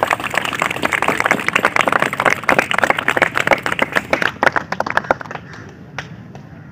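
Crowd applauding, many hands clapping, dying away about five seconds in with one last clap a second later.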